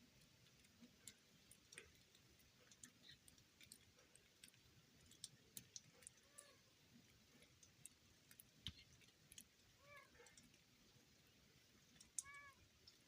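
Near silence, broken by faint scattered ticks and clicks and three or four short, faint animal calls.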